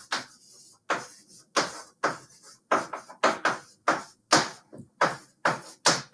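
Quick pen strokes of someone writing or drawing on a surface: a rapid run of short scratchy strokes, about two to three a second.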